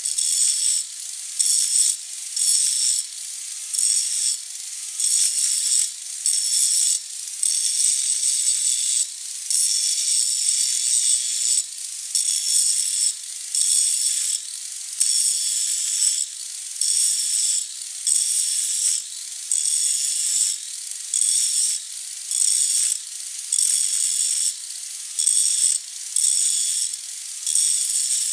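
Power grinder cutting into the steel tube of a hydraulic cylinder, grinding out a crack in repeated passes about once a second. The high-pitched grinding swells and eases with each stroke.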